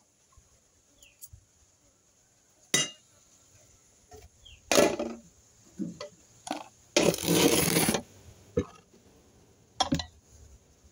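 Clinks, knocks and scrapes of an aluminium cooking pot, its lid and metal utensils as macaroni is dished onto a plate: a few separate sharp clatters, with a louder scraping rustle lasting about a second past the middle.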